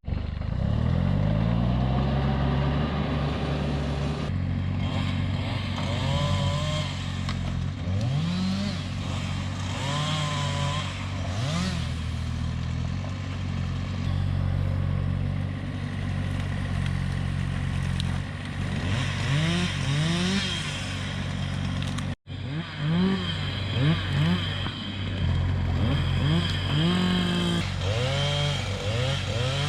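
An engine running, its pitch rising and falling repeatedly as it revs.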